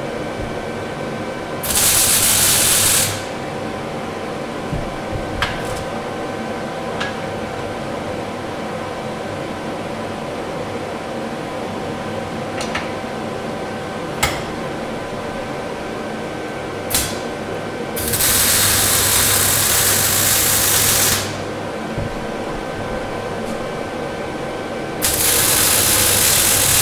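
Arc welding a sprocket to its flange: three bursts of welding arc, a short one about two seconds in, then two of about three seconds each later on. Under them runs the steady hum of a fume extractor fan, with a few sharp clicks between the welds.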